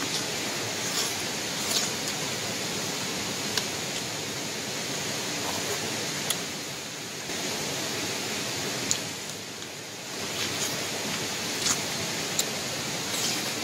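A steady, even hiss with scattered short clicks and smacks of eating: a man picking at fish with his fingers and sipping broth from a bowl with a spoon.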